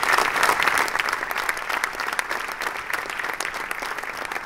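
An audience applauding in a cinema auditorium, loudest at the start and gradually dying down.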